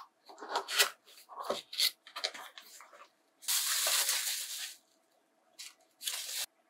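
Cardboard gift box being opened and the white wrapping crinkled and pulled off a ceramic bowl: a run of short rustles and scrapes, a longer crinkling about three and a half seconds in, then two brief rustles near the end.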